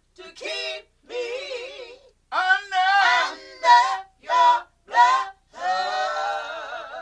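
Gospel singing without accompaniment: a voice sings short phrases with a strong vibrato, separated by brief silences, then holds one long note near the end.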